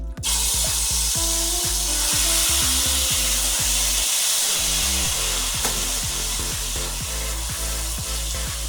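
Diced marinated chicken breast dropped into a hot buttered pan, sizzling loudly. The sizzle starts suddenly about a quarter-second in and then holds steady.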